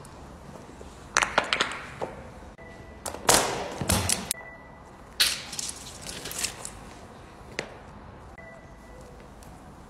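Handling noise: scattered sharp clicks and short crackling, rustling bursts, loudest a little over three seconds in, over a low steady background.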